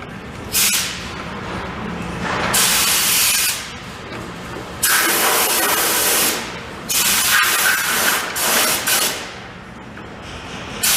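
Compressed-air tool hissing in several separate bursts of one to two seconds each, with pauses between them, while the bolt and nut of the bulkhead clamp are being worked.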